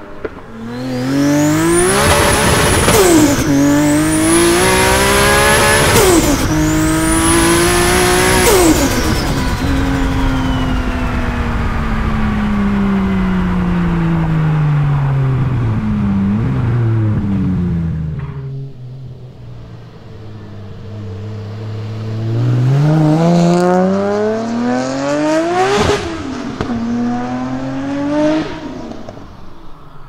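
A highly tuned MK4 Toyota Supra's big-turbo 2JZ inline-six pulls hard through three quick upshifts, with a high turbo whistle climbing with the revs and dropping at each shift, then the revs fall away as it lifts off. Later it accelerates hard again through two more gears.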